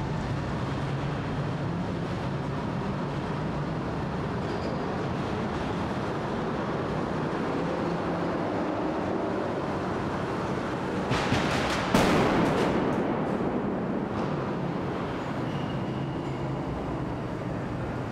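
Vehicle convoy engines and tyres rumbling steadily, echoing in a concrete tunnel. About eleven seconds in come a quick run of sharp cracks, then a loud bang that echoes away over a couple of seconds: a staged pyrotechnic blast that leaves fire and smoke in the tunnel.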